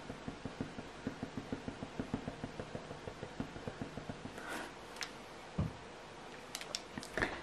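Kneadable putty eraser dabbed quickly on hot-press watercolour paper, lifting graphite to soften the shading: soft, even taps about five a second that stop about four and a half seconds in. A single low thump follows, then a brief hiss near the end.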